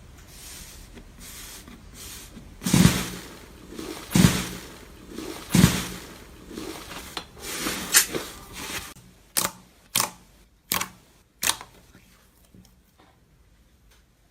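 Slime being handled for ASMR: three loud squishes about a second and a half apart, softer squelching, then four short sharp pops in quick succession.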